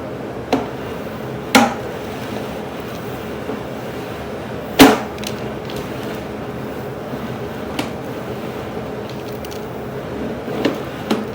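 Sharp knocks and clunks from a sewer inspection camera and its push cable being fed through the line, over a steady rushing noise. The loudest knock comes about five seconds in, with lighter ones before and after it.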